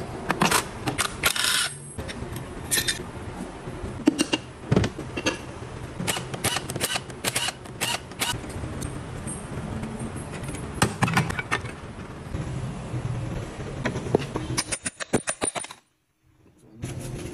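Workshop clatter from a motorcycle engine teardown: sharp metallic clicks, knocks and scrapes of tools and engine parts being handled, some coming in fast rattling runs. The sound drops out briefly near the end.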